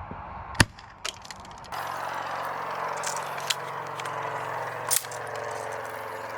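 A single sharp shot from an airsoft grenade launcher about half a second in. From just under two seconds in there is a steady rushing background with a low hum and a few scattered ticks, which cuts off near the end.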